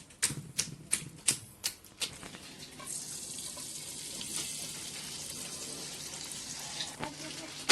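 Pestle pounding cooked garden eggs in a mortar, about six even knocks, roughly three a second, stopping about two seconds in. A steady hiss follows for the rest of the time.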